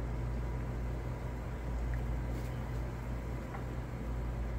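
Soda poured from a plastic bottle into a glass, a soft steady splash and fizz, over a low steady hum.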